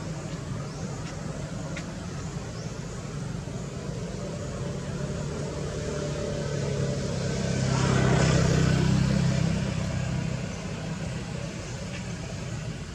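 A motor vehicle's engine running with a steady low hum, while a vehicle passes, swelling to its loudest about eight seconds in and then fading away.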